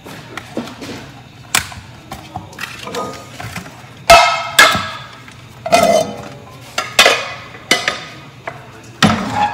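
Metal pots and pans clanking against each other and the stove grates: a series of sharp clangs, several ringing briefly, the loudest about four seconds in and again near six seconds.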